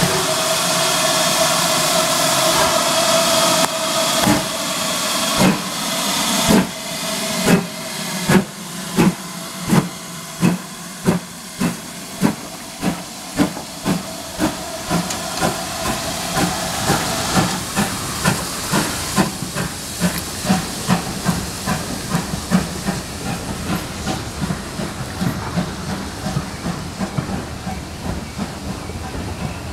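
GWR 2800-class 2-8-0 steam locomotive starting its train: a steady hiss of steam, then, about four seconds in, exhaust chuffs begin as slow single beats that quicken steadily as it pulls away. The beats grow fainter in the second half as the coaches roll past.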